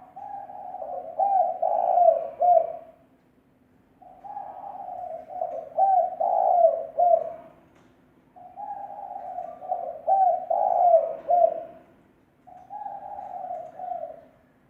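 Spotted dove cooing in four phrases a few seconds apart. Each phrase is a long low coo followed by a run of shorter notes, and the last phrase is shorter than the others. It is a decoy dove's call, used to lure wild doves.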